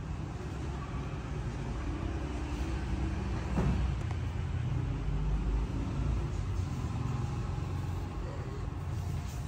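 Steady low background rumble with a faint hum, with a short louder swell about three and a half seconds in.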